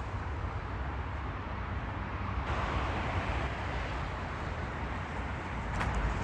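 Steady outdoor background noise with a deep rumble and hiss, a little louder from about halfway through, with a faint tick near the end.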